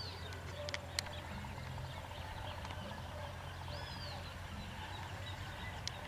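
Wild birds calling in the open: two arched, whistled notes about four seconds apart and scattered faint chirps. A few sharp clicks and a low steady hum run underneath.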